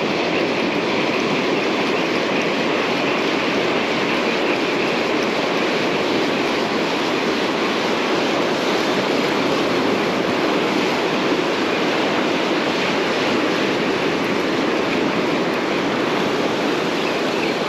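Ocean surf breaking and washing up a sandy beach: a steady, even rush that doesn't let up.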